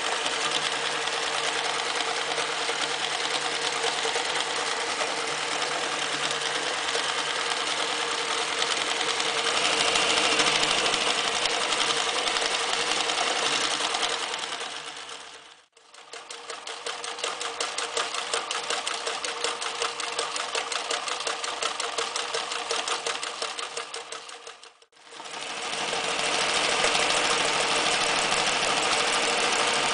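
Reads 1209 electric zigzag sewing machine stitching, first through denim at a steady speed. It stops sharply about halfway, then runs slower with each stitch heard as a distinct regular beat, stops again, and near the end runs steadily through two layers of sailcloth.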